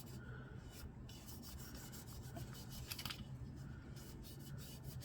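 Faint rubbing and scrubbing of an oiled cleaning pad on a metal pistol magazine, working oil in to lift surface rust.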